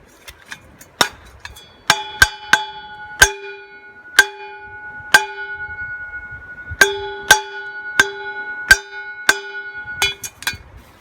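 Repeated sharp strikes on a metal object that rings with a clear, bell-like tone after each blow, about twenty hits at an uneven pace, thickest between about two and ten seconds in.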